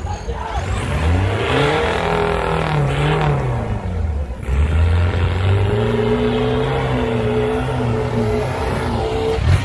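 Off-road jeep's engine revving hard under load as it drives through a mud pit and up the bank. The pitch climbs about a second in, drops back around four seconds, then rises again and is held high.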